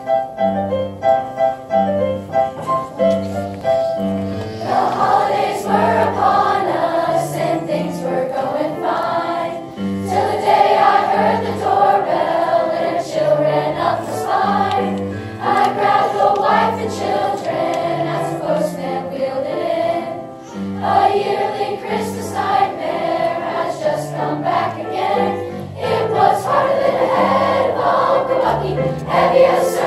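Large youth choir of middle-school voices singing with piano accompaniment. The piano plays alone for the first four seconds or so, then the choir comes in over a steady bass line.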